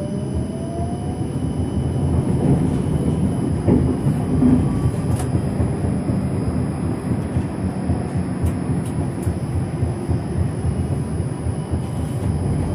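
Tram running along the track, heard from the driver's cab: a rising traction-motor whine that fades out about a second in, then steady rolling noise with a few sharp clicks.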